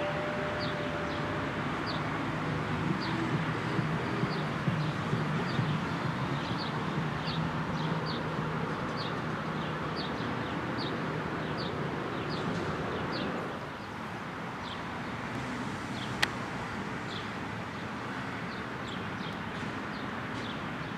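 A small bird chirping repeatedly, short high chirps about once a second, over the steady rush of road traffic that eases a little about two-thirds of the way through. The last bell tone fades out in the first second, and there is a single sharp click near the end.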